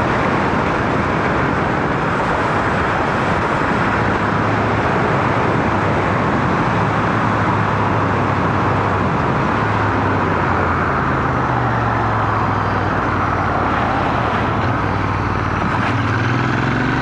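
Royal Enfield Interceptor 650's parallel-twin engine running while the motorcycle cruises, under heavy wind and road noise. The engine note rises slightly near the end.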